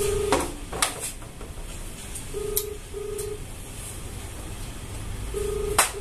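An electronic tone beeping in pairs of short beeps, one pair about every three seconds, in the cadence of a telephone ring. Sharp clinks of bottles and glasses on the table come in between, the loudest just before the end.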